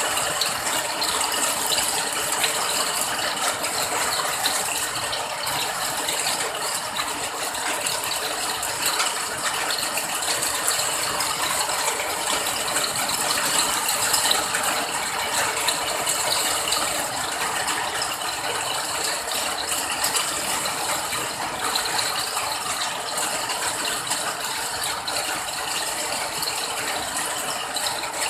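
Steady rain falling, a dense, even patter of drops that keeps up without change.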